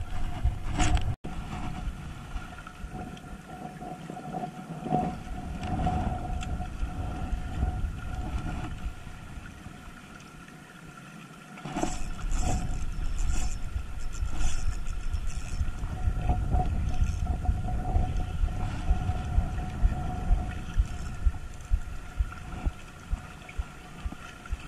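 Wind rumbling on the microphone of a body-worn camera while an ultralight spinning reel is worked against a hooked fish. Sharp clicks from the reel come through about halfway in, over a steady faint hum.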